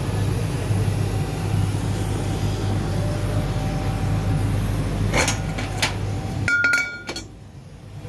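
Laser cutting machine running with a steady low hum, with two sharp clicks a little past the middle. About six and a half seconds in, the hum cuts off suddenly under a brief high tone, and it goes much quieter.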